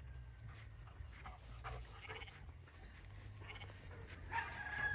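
A dog panting faintly as it runs up, over a low steady rumble. A thin, high whine starts near the end.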